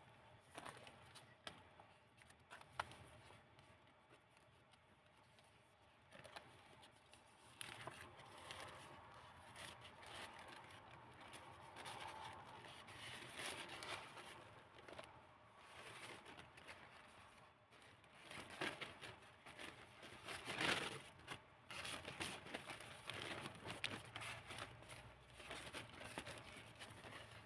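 Paper pages of a handmade junk-journal book rustling softly as they are handled and turned, with small taps and crinkles; the loudest rustle comes about two-thirds of the way through.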